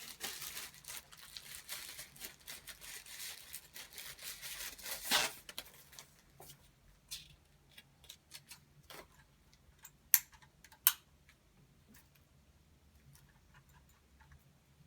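Packaging rustling and crinkling as the power strip is unpacked, for about six seconds. Then scattered light clicks and taps of handled parts, with two sharp clicks about ten seconds in.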